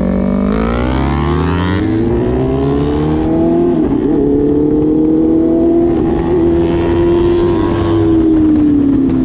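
Sport motorcycle engine heard from the rider's seat, revving up as the bike accelerates, with a dip in pitch at a gear change about two seconds in. It climbs again, holds a steady pitch at cruising speed, and eases off slightly near the end.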